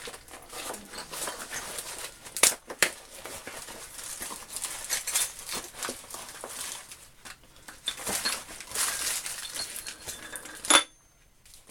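Heavily taped parcel being unwrapped by hand: wrapping crinkled and tape pulled off, with several sharp snaps and clicks. The sound stops abruptly shortly before the end.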